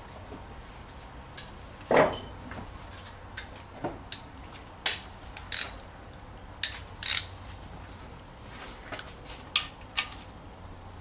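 Ratchet wrench clicking in short irregular bursts and metal tools knocking as the oil drain plug is screwed back in and tightened, with one louder knock about two seconds in.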